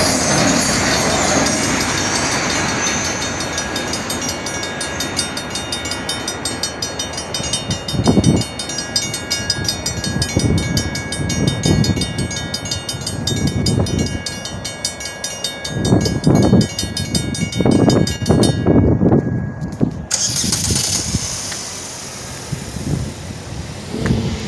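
The tail end of a freight train rumbles past a grade crossing. Then the crossing's mechanical bells keep ringing rapidly and evenly until they stop suddenly about twenty seconds in. Several low whooshes of noise are heard, and a car comes up to the crossing near the end.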